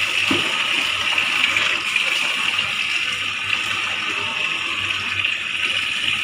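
Water pouring steadily from an open wall tap, with a brief splash as wet clothes and a mug of water are handled near the start.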